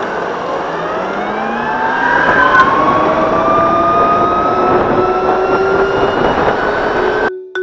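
Gogoro 2 Plus electric scooter's motor whining as it pulls away and speeds up, the whine rising steadily in pitch for several seconds over wind and road noise. The sound cuts off abruptly near the end.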